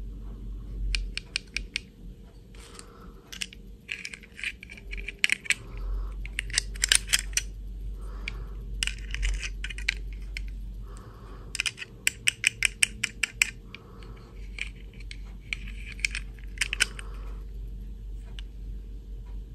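Small hard-plastic doll and its rigid snap-on plastic dress handled between fingers: several bursts of quick, light plastic clicks and rattles as the dress is worked onto the doll.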